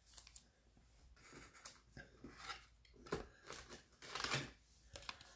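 Faint scraping and rustling of a baseball card being slid into a rigid plastic top loader, in short scattered strokes that are busiest about three and four seconds in.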